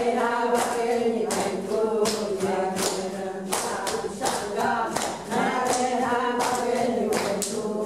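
A group of women singing together without instruments, with rhythmic hand clapping.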